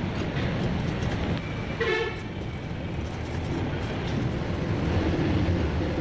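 Steady low rumble of motor traffic, with one short vehicle horn toot about two seconds in.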